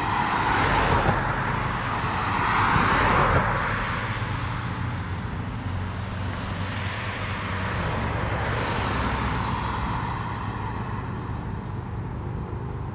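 Road traffic: cars passing on the road, their tyre and engine noise swelling and fading, loudest about one and three seconds in, with a gentler swell later.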